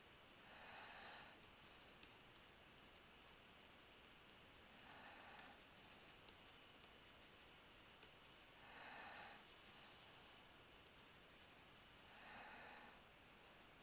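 Faint breathing close to a headset microphone: four slow, soft breaths, about one every four seconds, over quiet room tone with a few light clicks.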